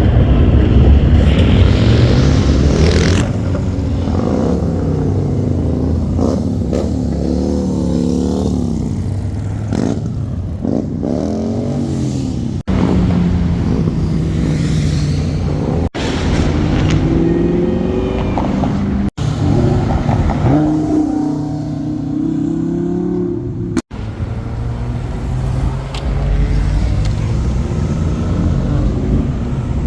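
Cars accelerating and revving past one after another, their engine notes climbing and falling as they go by, with the loudest hard pull in the first few seconds. The passes come in short clips with abrupt cuts between them.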